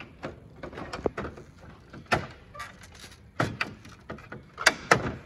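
Toyota Hilux front grille being pressed back into place by hand: a string of sharp plastic clicks and knocks as its clips seat. The loudest comes about two seconds in, with a close pair near the end.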